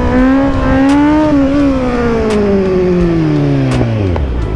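Kawasaki Z900's inline-four engine, its note held briefly then falling steadily over about three seconds as the revs drop off.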